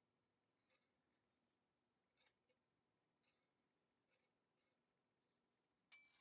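Near silence, with faint scrapes from the arms of a pair of hand-forged iron dividers rubbing against each other at the hinge as they are opened and closed, and a small metallic click with a brief ring near the end.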